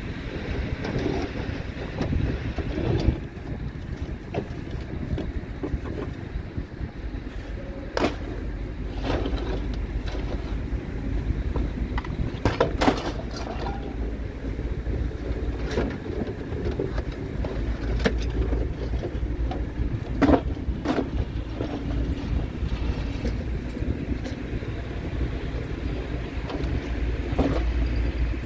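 A vehicle on the move: a steady low rumble, with sharp knocks and rattles every few seconds.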